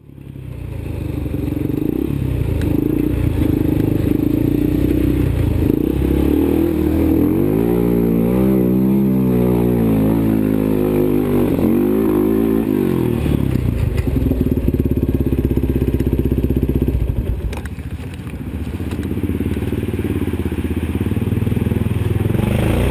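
ATV (quad) engine running under throttle, its pitch rising and falling as it revs up and eases off in the middle, then dropping back briefly about three-quarters of the way through before picking up again.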